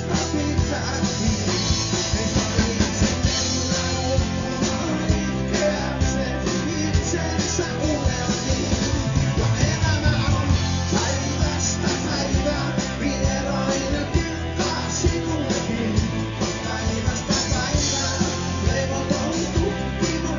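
Live rock band playing: electric guitar, bass guitar and drum kit with a steady beat.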